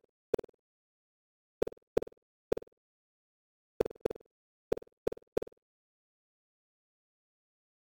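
Computer-generated bounce sounds: short knocks, each one a virtual box hitting a wall of the room, about nine in uneven clusters of two or three, then silence for the last two and a half seconds.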